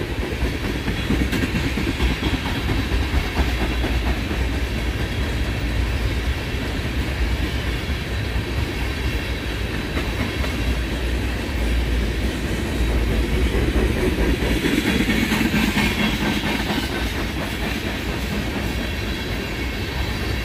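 Freight train of oil tank cars rolling past on the main line: a steady rumble of steel wheels on rail with clickety-clack, swelling louder for a few seconds about two-thirds of the way through.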